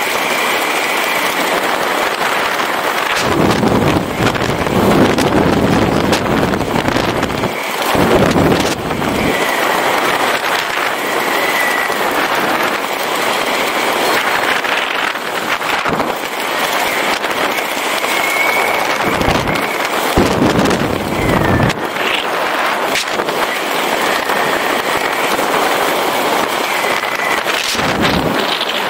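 Wind rushing over the camera microphone in flight under an open square parachute canopy, with heavier gusts buffeting it every several seconds and a faint, wavering whistle coming and going.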